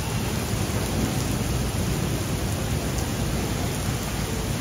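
Heavy rainstorm downpour: a steady hiss of rain with a constant low rumble beneath it.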